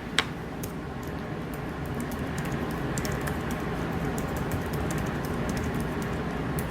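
Keys being pressed in quick, irregular clicks as numbers are keyed in for a calculation, with one sharper click about a quarter second in, over a steady low hum.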